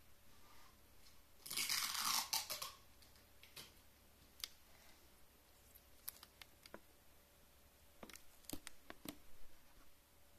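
A burst of dry crackling and rustling lasting about a second, starting a second and a half in, from coconut-husk bedding disturbed as a baby Malayan blood python shifts while swallowing a mouse, followed by scattered faint clicks.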